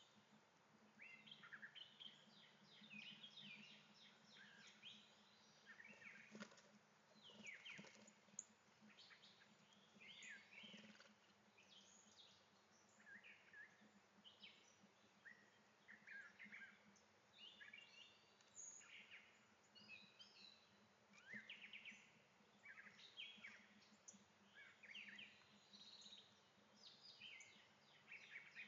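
Faint birdsong from several birds, with many short chirps and trills overlapping, over a steady low hum.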